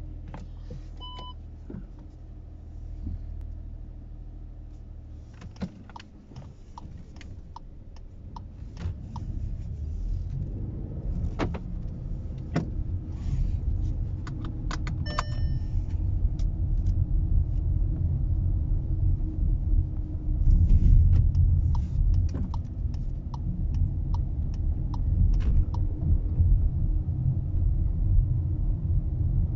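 Inside a VW Polo, the engine idles with a steady low hum, then the car pulls away and drives, with engine and road rumble growing louder through the second half. A short electronic chime sounds about a second in and another around the middle, with scattered clicks in between.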